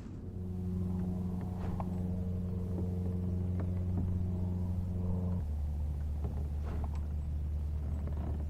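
A steady low motor hum that drops abruptly to a lower pitch about five seconds in, with a few faint clicks over it.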